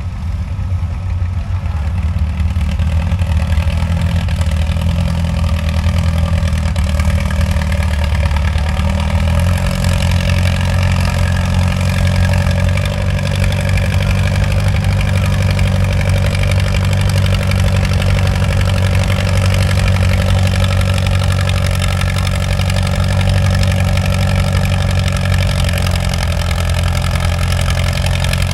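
Vintage Allis-Chalmers farm tractor's engine pulling a weight-transfer sled under heavy load, running steadily, with the engine note shifting to a new steady pitch about nine or ten seconds in.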